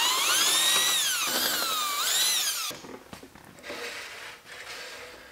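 Cordless power drill removing the bolts that hold the fixture-table top to its frame. The motor whine rises, dips, rises again and falls as the trigger is feathered, then cuts off abruptly about two and a half seconds in. Faint taps and rubbing follow, from a metal level being set on the steel table top.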